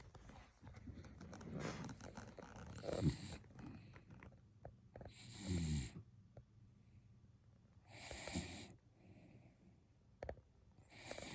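Snoring: slow, noisy breaths about every three seconds, some with a low rattling tone and others mostly a hiss.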